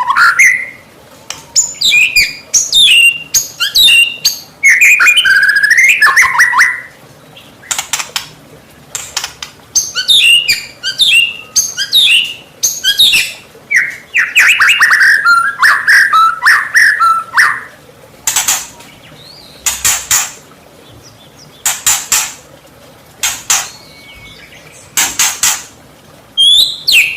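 White-rumped shama (murai batu) singing fast, varied whistled phrases that glide up and down. These alternate with short, harsh, rasping bursts, mostly in the second half. It is a lure song used to make other shamas respond.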